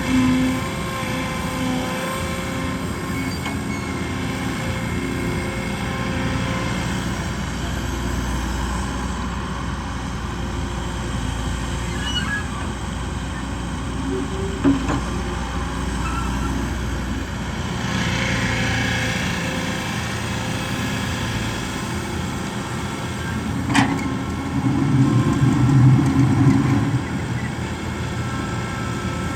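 Diesel engine of a Kobelco SK120 Mark 3 hydraulic excavator running steadily while it digs and loads soil into a dump truck. It grows louder for a few seconds about two-thirds of the way through, and a couple of sharp knocks sound along the way.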